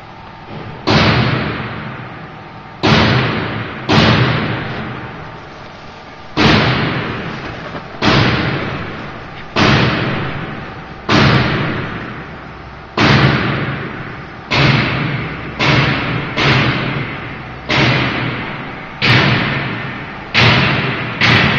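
A series of loud, sudden thumps, roughly one every second and a half, each followed by a rush of noise that fades away over about a second.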